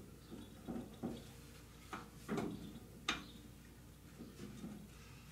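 A series of short, irregular metallic scrapes and clicks as a homemade all-thread puller is worked to draw the internal floating piston (IFP) out of an FOA shock's remote reservoir.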